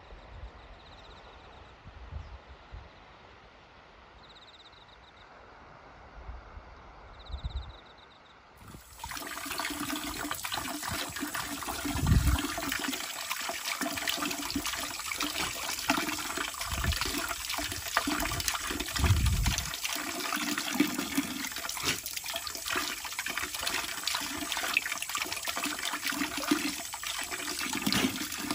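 Faint outdoor ambience, then, about nine seconds in, water from an outdoor garden tap starts to be heard pouring and splashing steadily and loudly. An Akita dog is drinking straight from the running stream.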